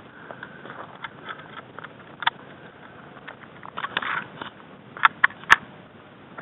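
Footsteps on a dry dirt and grass trail with light crackle, then rustling handling noise as the body camera is covered. Three sharp clicks come in quick succession a little after five seconds in, the last the loudest.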